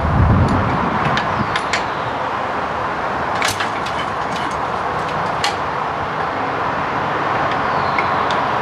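Ransomes MG5 crawler's petrol engine being swung by hand on the starting crank in a cold start, not yet catching: a few short metallic clicks and clanks from the crank handle over a steady background noise.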